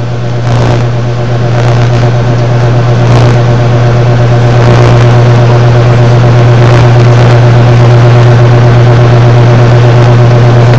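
A loud, steady low hum with a faint murmur beneath it.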